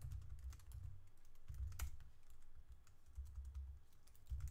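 Typing on a computer keyboard: irregular key clicks, with one louder keystroke a little under two seconds in, over a low rumble.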